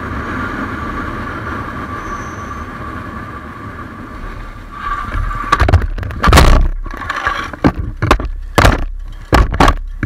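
Motorcycle riding along at a steady pace with engine and wind noise and a steady whine, then from about five seconds in a run of loud knocks and thuds, the loudest about six and a half seconds in, as the bike and rider go down.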